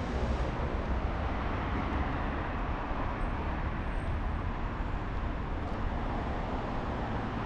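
Steady city street traffic noise: a continuous low rumble of road traffic with a hiss above it, with no single vehicle or event standing out.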